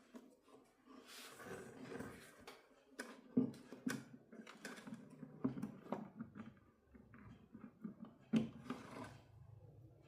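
Irregular light clicks and knocks of small parts being handled, with two sharper knocks about three and eight seconds in, over a faint low hum.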